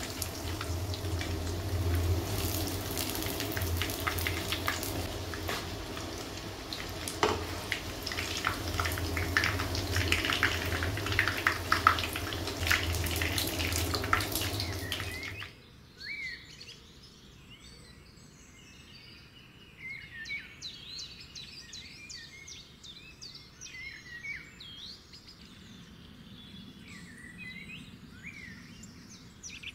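Breaded bread patties sizzling and crackling as they fry in hot oil in a pan. About fifteen seconds in, this cuts off abruptly and gives way to quieter birdsong, many short chirps.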